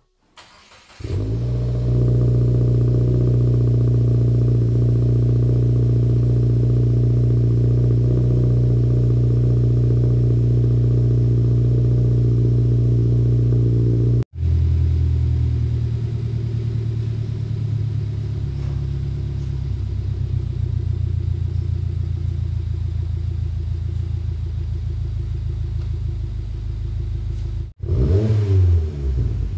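2022+ Subaru WRX's turbocharged 2.4-litre flat-four idling steadily through a Noble 3-inch stainless steel cat-back exhaust with four straight-through mufflers and quad tips. Near the end the engine is revved, its pitch rising and falling.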